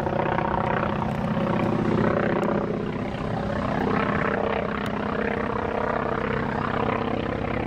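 North American T-28C Trojan's Wright Cyclone radial engine and propeller running in flight during an aerobatic display: a steady drone of many tones whose pitch shifts slightly.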